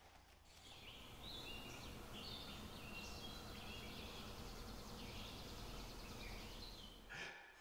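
Faint outdoor ambience: a steady low rumble with faint, high bird chirps scattered through the middle.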